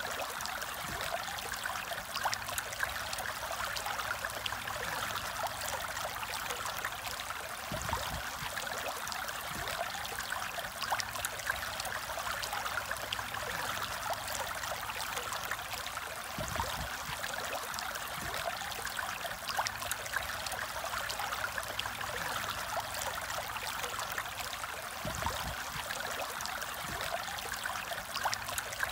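Aquarium water trickling and bubbling steadily, with a fine crackle of small bubbles, as from a tank filter or aeration. A soft low thud comes about every eight seconds.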